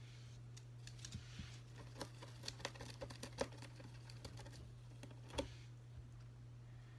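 Light, scattered crackling and clicking of a bag of dried leaves and flowers being rummaged, with a louder crackle about three and a half seconds in and another near five and a half seconds, over a steady low hum.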